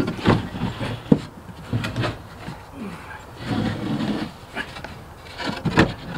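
A wooden bench board being lifted out of its place in a camper and handled. There are knocks and scrapes of wood on wood: a sharp knock about a second in, a longer scrape in the middle, and a louder bump near the end.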